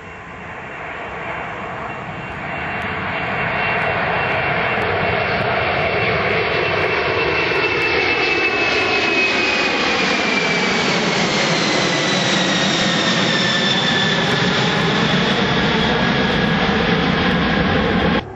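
Boeing 747-400 freighter's four jet engines at climb-out power as it passes low overhead: the engine noise builds over the first few seconds and stays loud. A high whine slides down in pitch as the jet goes over, and the sound cuts off suddenly near the end.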